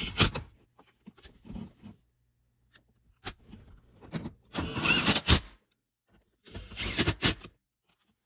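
Ridgid cordless driver running in short bursts, driving fasteners into the dash bracket: one burst ending just after the start, then two more of about a second each in the second half, with faint handling clicks between.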